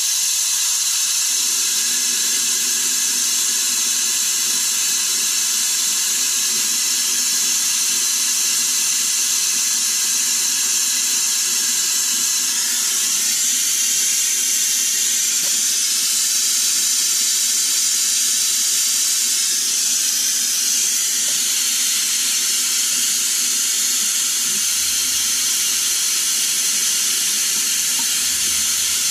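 Vacuum brake bleeder hissing steadily as it draws brake fluid and air out through a newly fitted front brake caliper's bleeder valve, bleeding the air out of the caliper.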